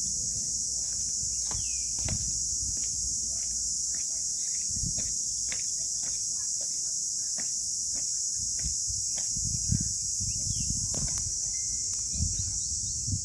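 A steady, high-pitched insect chorus drones without a break, with a few soft low rumbles underneath.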